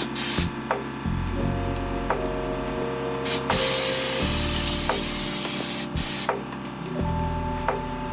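Air-powered spray gun spraying bed liner: a brief burst of hiss near the start, then a long burst of about two and a half seconds in the middle, over background music.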